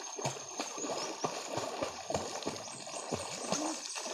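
River water splashing as a swimmer kicks and strokes, a run of irregular small splashes over the trickle of shallow running water.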